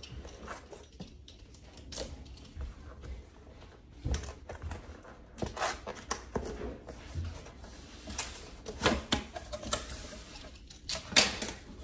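Utility knife slicing packing tape on a cardboard box, then the cardboard flaps and lid being pulled open. Irregular scrapes, rustles and knocks, busier after the first few seconds, with the loudest knocks near the end.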